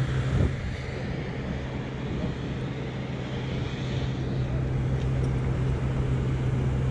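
An engine running steadily at a constant speed, a low even hum with mechanical noise over it.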